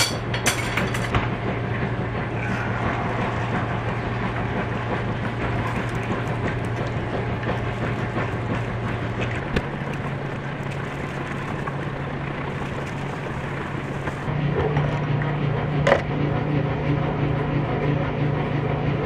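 A vehicle running steadily, its low hum stepping up in pitch twice, with a sharp click near the end.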